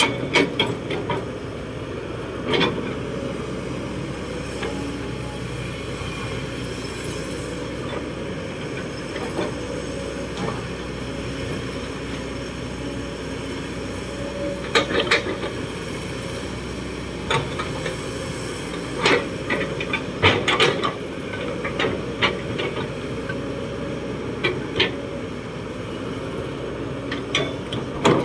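Kobelco SK200-8 excavator's diesel engine running steadily under hydraulic load while the bucket digs into soil, with scattered sharp knocks and clanks from the bucket and boom linkage, bunched about halfway through and again around two-thirds in.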